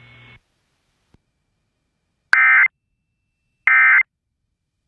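Emergency Alert System SAME data bursts on NOAA Weather Radio: after the faint radio hiss cuts off, two short, identical bursts of digital data tones sound a little over a second apart. They are the end-of-message code that closes the tornado warning broadcast.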